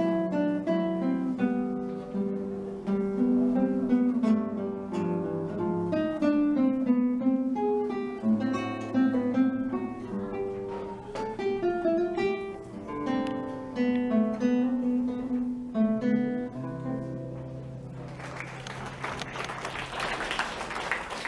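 Classical guitar played solo, a fingerpicked melody over bass notes, ending on a held low note. Applause breaks out about three seconds before the end.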